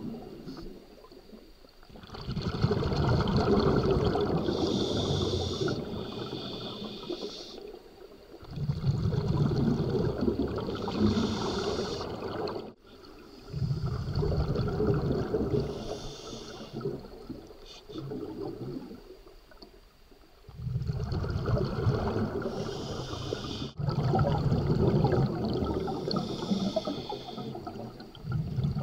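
Scuba diver's regulator breathing underwater: rushing, bubbling exhalations alternating with quieter inhalations, in repeated cycles every few seconds.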